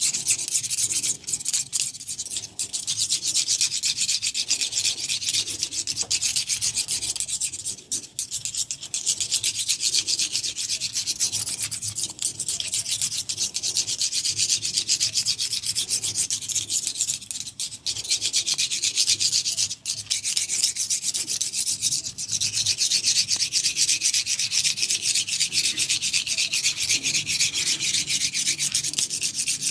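Hands rubbing vigorously through oiled hair and scalp close to the microphone, a continuous dense scratchy rustle with a few brief pauses.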